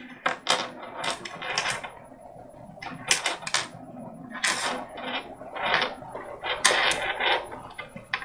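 Small plastic beads clicking and rattling together as they are handled and sorted by hand, in a quick irregular run of sharp clicks.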